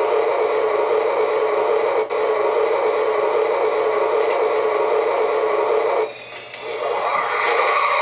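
Sci-fi storm sound effect: a steady, static-like hiss with faint crackles. It dips briefly about two seconds in, cuts out about six seconds in, and comes back with sweeping tones.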